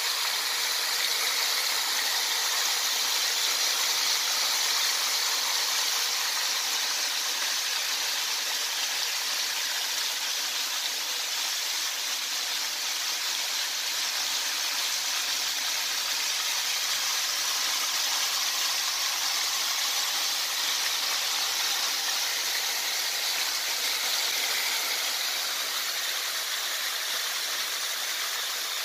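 Flour-dredged chicken pieces deep-frying in a pot of hot oil: a steady sizzling, bubbling hiss.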